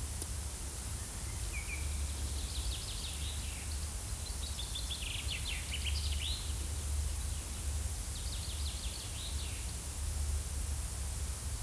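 Forest ambience: birds chirping in three short bouts of rapid trilled notes, over a steady low rumble and a faint hiss.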